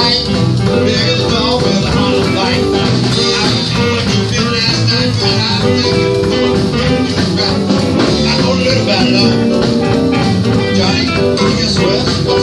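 Live blues band playing: electric guitar leading over bass guitar and keyboard, steady and full throughout.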